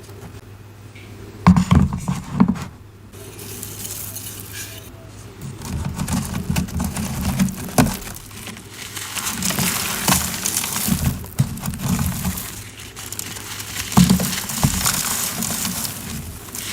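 Close-up crunching and crumbling of compressed cornstarch chunks, in repeated bursts with a few sharp cracks as pieces break.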